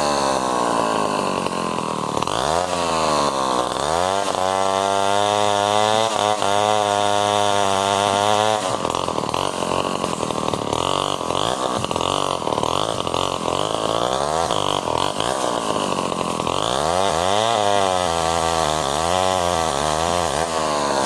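Stihl 070 large two-stroke chainsaw running, its pitch rising and falling repeatedly as the throttle is opened and eased; for several seconds in the middle the steady pitch gives way to a rougher sound.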